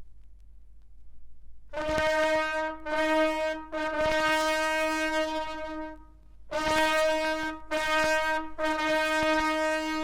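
Japanese army bugle sounding a call on one repeated note: two short notes and a long held one, then the same pattern again, starting about two seconds in. Faint record surface noise comes before the first note.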